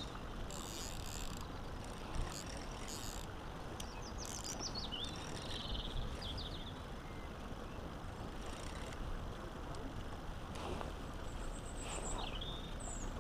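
Small birds chirping and singing in short, repeated phrases over a steady outdoor background rush.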